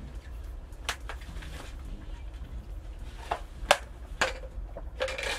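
A handful of sharp clicks and knocks from eating utensils and dishes being handled, spaced irregularly, with a short scraping rustle near the end.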